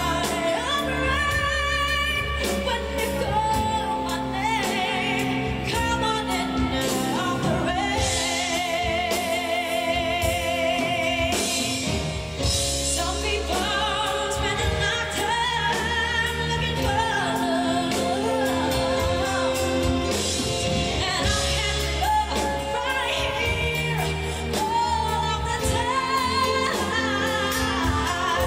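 A female vocalist sings a ballad live with a band, holding long notes with a strong vibrato over the accompaniment.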